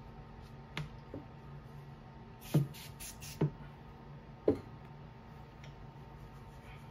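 Aerosol cleaner can sprayed in two short hissing bursts, about two and a half and three and a half seconds in, followed by a sharp knock about a second later; a few light clicks come before.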